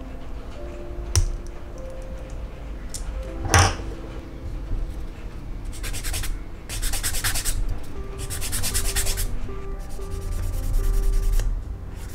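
A flat hand file rasping against a small plastic model-kit part in several strokes, most of them from about six seconds in, to trim the part down so it fits. There is a short sharp tap about a second in and a louder one at about three and a half seconds.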